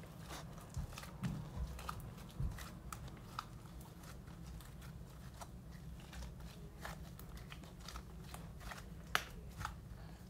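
Hands kneading and squishing slime, making irregular small sticky clicks and pops, a few a second.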